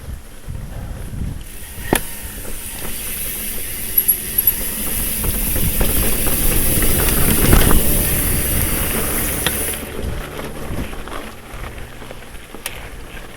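Mountain bike rolling along a dirt trail: tyre and trail rumble with wind rushing over the microphone, building to its loudest a little past the middle and easing off near the end.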